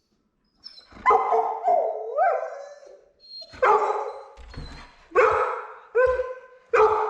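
A puppy barking about six times in a row, loud yelping barks with a whiny bend in pitch, impatient to be taken out.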